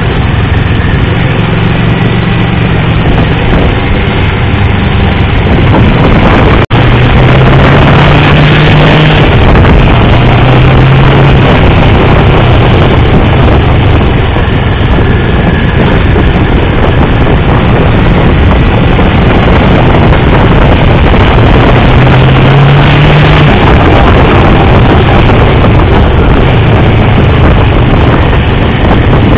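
Motorcycle engine running hard on a race circuit, heard from a camera on the bike and mixed with wind rush; its pitch rises in short bursts of throttle several times. The sound cuts out for an instant about seven seconds in.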